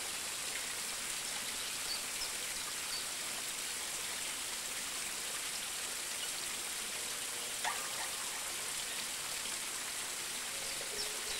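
Steady, even hiss of water, like rain or a stream, with a few faint high chirps and one brief sound about two-thirds of the way through.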